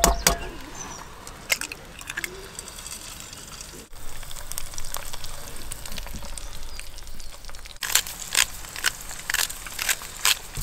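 Eggs frying in a non-stick pan on a portable butane camping stove, sizzling with scattered sharp crackles and pops.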